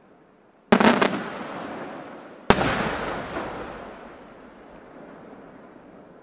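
Aerial firework shells bursting: a quick cluster of bangs about a second in, then one sharp bang about two and a half seconds in, each dying away slowly.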